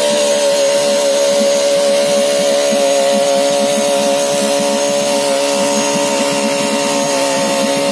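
Tohatsu outboard motor running at a steady speed, a sustained engine drone with no change in pitch.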